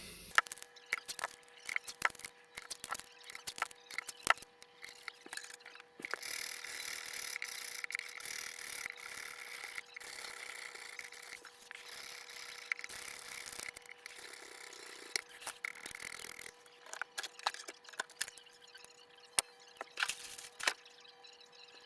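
An acoustic guitar is being cleaned and polished by hand. There are scattered light knocks and taps, then about ten seconds of continuous rubbing in the middle, then more taps near the end.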